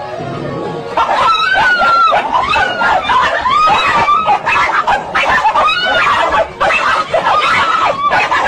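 After about a second of music, a high-pitched voice lets out repeated shrill laughing cries, each one rising and falling, loud and keeping on.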